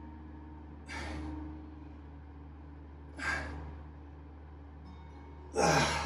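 A man's forceful exhalations, one on each rep of a weight-plate chest press: three breaths about two and a half seconds apart, the last and loudest near the end ending in a strained, falling grunt.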